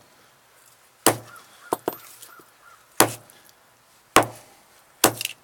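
Sledgehammer blows on the punctured, swelling lithium battery of a JBL Clip speaker: four heavy strikes, one to two seconds apart.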